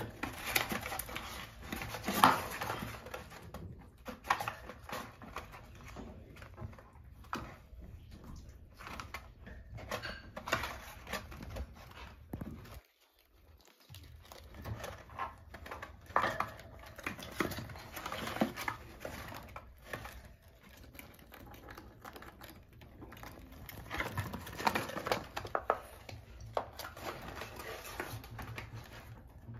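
Pet fancy rats scuffling in a cardboard box as they fight over a chicken bone: claws scrabbling, scratching and tapping on the cardboard in irregular flurries. A brief silent gap falls near the middle.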